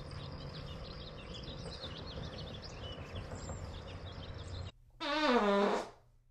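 Small birds chirping over steady low outdoor background noise. About five seconds in, a louder, short pitched sound effect glides steadily downward in pitch for about a second.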